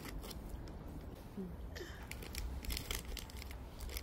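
A small foil sweet wrapper crinkling as it is unwrapped by hand: a quick run of crackles, most of them in the second half.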